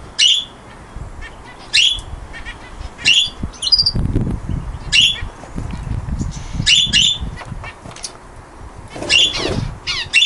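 Caged aviary birds calling, with sharp, loud calls repeated about every second or so and a falling squawk near the end.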